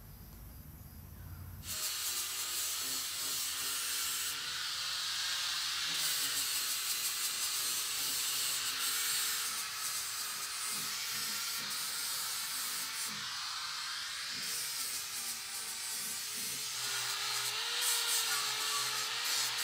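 Electric angle grinder running its disc against steel rectangular tubing, a steady grinding hiss with a motor whine that wavers as the load changes. It starts about two seconds in.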